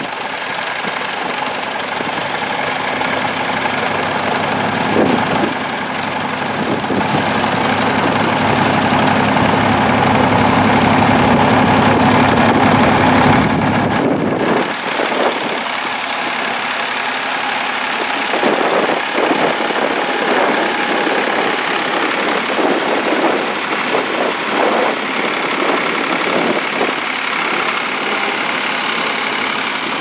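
Vintage International tractor engine running under load while ploughing. The note is steady at first and changes abruptly about halfway through to a rougher, clattering sound.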